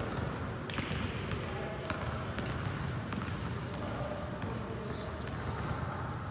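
Fencers' footwork thudding on a hard floor during smallsword sparring, with scattered sharp clicks and faint voices.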